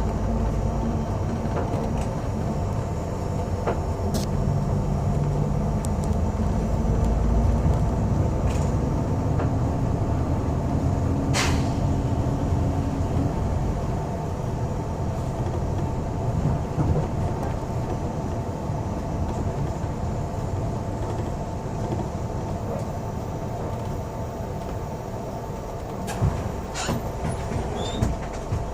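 Cabin noise inside a moving double-decker city bus: a steady engine and road rumble, with the engine note rising and falling over the first dozen seconds. Occasional sharp clicks and rattles come from the cabin.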